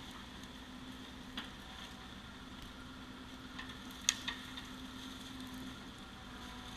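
Excavator engine running at a steady hum, with a few sharp metallic clicks, the loudest about four seconds in.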